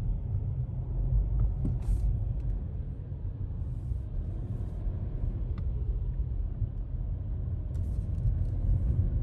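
Low, steady rumble of a car, heard from inside its cabin.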